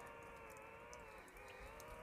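Near silence, with a faint steady whine of several tones that dips briefly in pitch about midway.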